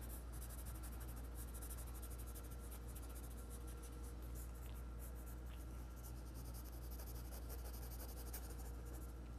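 Graphite pencil scratching on paper in many quick short strokes, shading a fur texture, over a faint steady low hum.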